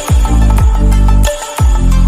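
Electronic dance music with heavy bass, falling bass sweeps and a steady drum beat.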